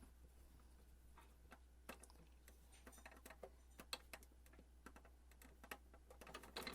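Near silence broken by scattered faint clicks and taps, with a brief cluster of quicker clicks near the end: the latches and screw of a Janome 525S sewing machine being handled as the machine is reassembled.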